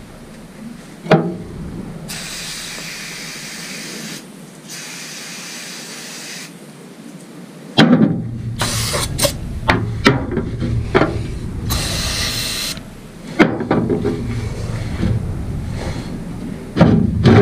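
Aerosol brake cleaner spraying in a long hiss onto greasy bench-vise parts to flush out old grease, with a short break partway through. After about eight seconds, shorter spray bursts mix with clicks and knocks of metal parts being handled on the truck bed.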